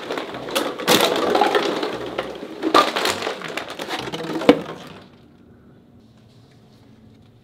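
Empty plastic water bottles being crushed and knocked over onto a hard floor: dense crinkling and clattering with several sharp cracks, stopping about five seconds in.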